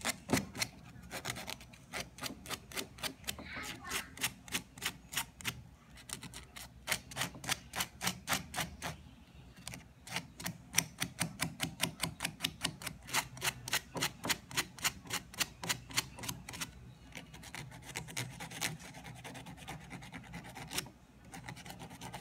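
Fine sandpaper rubbed quickly back and forth over a small copper contact from a pressure washer's trigger switch: scratchy strokes several a second, in runs with short pauses. The sanding clears the black burn that keeps the contacts from closing properly, the cause of the washer starting only now and then.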